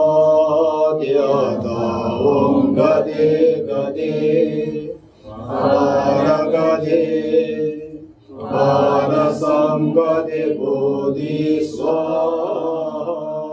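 Male voice chanting a Tibetan Buddhist mantra in long, slow, held phrases, with two short pauses for breath, about a third and about two-thirds of the way through.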